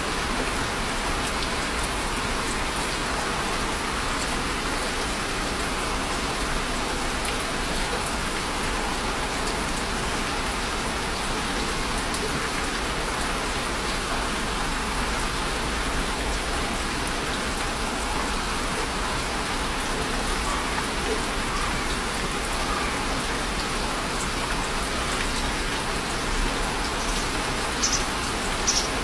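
Steady rain falling, an even unbroken hiss, with a few sharper individual drops near the end.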